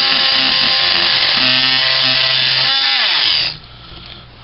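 Ryobi P340 18-volt oscillating multi-tool with a metal-cutting blade running at full speed, cutting through a small metal backsplash clip. About three seconds in it is switched off, and its pitch falls as it winds down.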